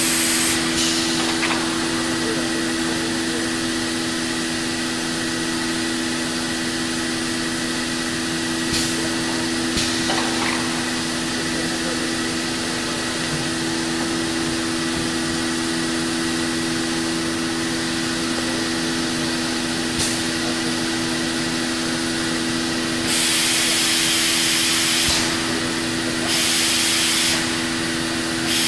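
Biesse Rover 35 CNC machining centre running with a steady hum of two low tones and a thin high whine over a hiss, broken by a few sharp clicks and, near the end, two spells of louder hissing.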